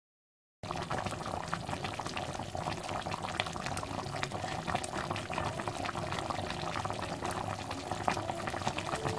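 Sweet coconut-milk sauce boiling hard in a pan around palitaw rice dumplings: a steady, dense crackle of popping bubbles that starts about half a second in.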